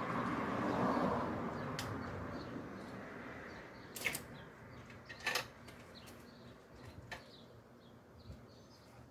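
Rustling that swells and fades over the first two seconds, then a few scattered sharp clicks and clinks, like tools or parts being handled.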